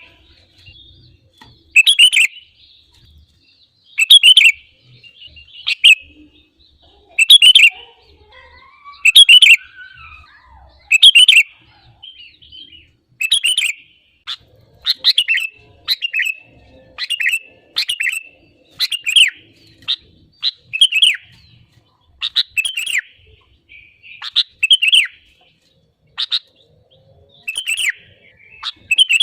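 Sooty-headed bulbul (kutilang) calling in short, loud chirping phrases, about one every two seconds at first and then roughly one a second from midway on.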